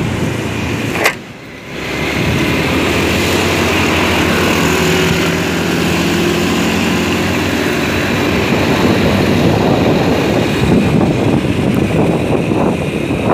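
Motorcycle at cruising speed: wind buffeting the microphone over the steady running of its engine. A sharp click about a second in, then the sound briefly drops before the steady noise returns.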